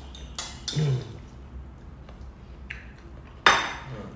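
Metal fork clinking and scraping on a ceramic dinner plate while eating, with a few sharp clicks and one loud clink near the end.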